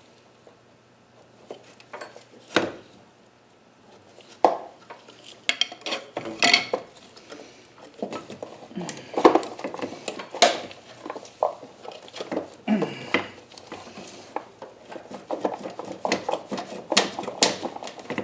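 Hand tools and parts clinking and knocking while working in a car's engine bay around the power steering reservoir: an irregular string of sharp clicks and clatters that becomes busier about halfway through.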